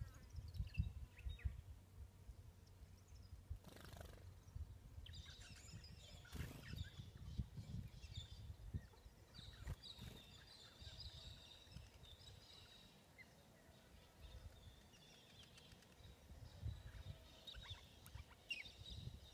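Faint outdoor ambience: wind buffeting the microphone in low, uneven gusts, with scattered faint chirps of small birds, busiest about halfway through and again near the end.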